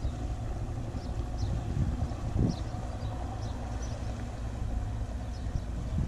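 Steady low hum of a small motor launch's engine running slowly as it motors through the marina, with faint short high chirps now and then.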